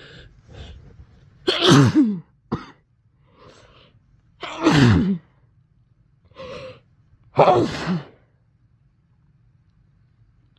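A person with a cold sneezing three times, about three seconds apart. Short sharp breaths are drawn in before and between the sneezes.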